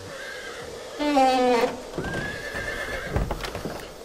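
A horse whinnies about a second in, one loud wavering call, followed by a few scattered hoof clops.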